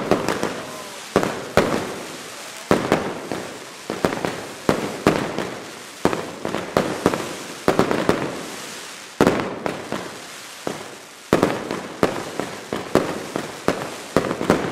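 Mascletà fireworks: a rapid string of loud, sharp bangs, roughly two a second, from daytime firecracker shells bursting overhead, each trailing off, with smaller pops between them.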